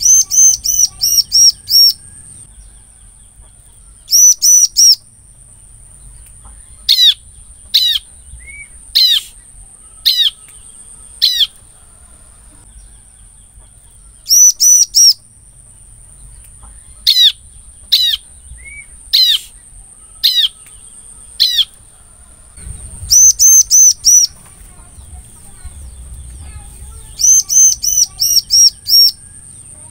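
Bar-winged prinia (ciblek) calling: loud bursts of four to six rapid, high, repeated notes alternate with runs of single downward-slurred notes spaced about a second apart. A thin steady high tone runs underneath throughout.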